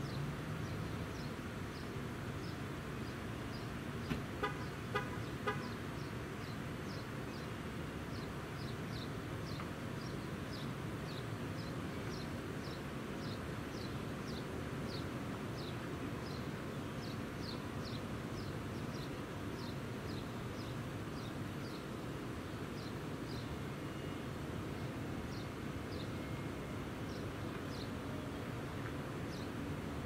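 Steady rumble of road traffic, with a bird giving short, high, falling chirps over and over. About four seconds in comes a run of four quick, evenly spaced car-horn beeps. The siren is silent.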